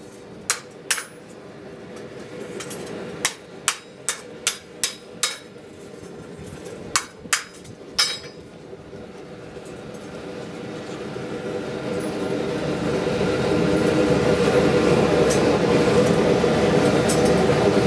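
Hand-hammer blows on a steel frying-pan blank held in tongs: about eleven sharp, ringing strikes in three groups over the first eight seconds. Then a steady mechanical drone swells up over several seconds and holds, louder than the hammering.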